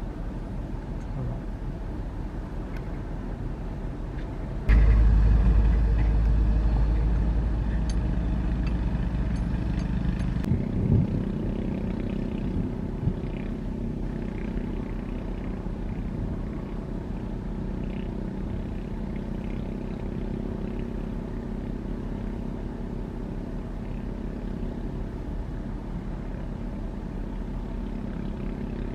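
Heavy construction machinery running, a steady diesel engine drone. About five seconds in, a much louder deep rumble sets in suddenly, eases off over several seconds, then cuts out abruptly, leaving the steady engine drone with a few light knocks.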